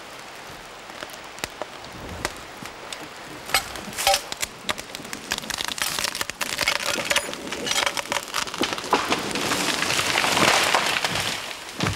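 A tree cut through at its base cracks and splits as a lumberjack pries it over with a felling lever. It then falls with a building rush of snapping branches and twigs, loudest about ten seconds in, ending in a heavy thump as it lands.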